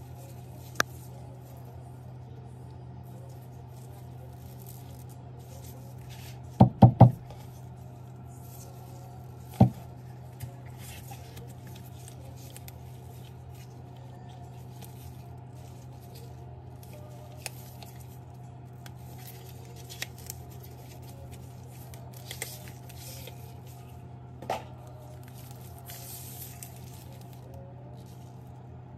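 Handling noise from a Sunshine SD-18E electric screwdriver kit's metal parts and cardboard box in gloved hands: scattered sharp clicks and knocks, loudest as three quick knocks about seven seconds in and one more near ten seconds, over a steady low hum.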